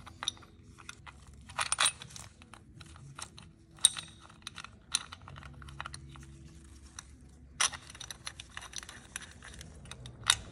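Light metallic clicking and rattling of a steel timing chain and its guide being handled and fitted on a GM 3.6L V6, with several sharp clinks standing out among the scattered ticks.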